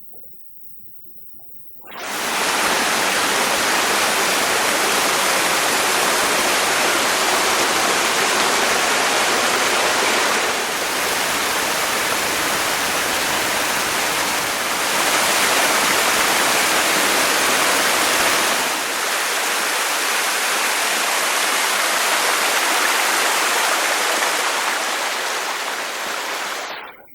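A 22-metre waterfall's falling water rushing loud and steady. It cuts in suddenly about two seconds in, shifts in level a few times, and cuts off abruptly near the end.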